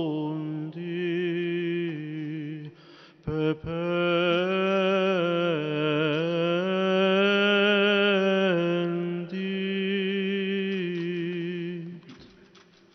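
A man's voice singing a slow solo liturgical plainchant, long held notes with a wavering pitch. It comes in three phrases with short breaks about three and nine seconds in, and fades out about a second before the end.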